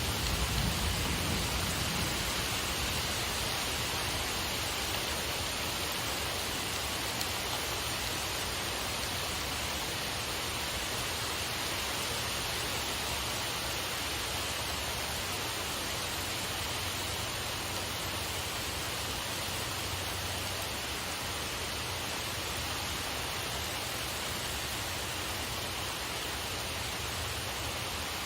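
Steady rain shower falling, an even hiss throughout, with a little more low rumble in the first couple of seconds.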